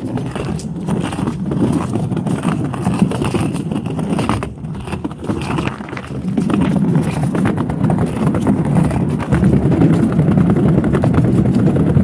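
Penny board wheels rolling fast over a footbridge deck: a steady low rumble with many small clicks as the wheels cross the deck's joints, easing off a little in the middle and louder again for the second half.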